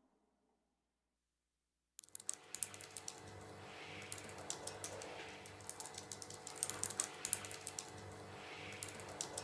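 Near silence for about two seconds, then fingers typing quickly on an Apple MacBook laptop keyboard: rapid, irregular key clicks over a low steady hum.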